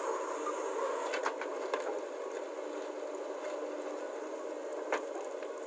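Diesel engines of a backhoe loader and tractor running steadily, with a few short sharp knocks, one at about a second in and another near the end.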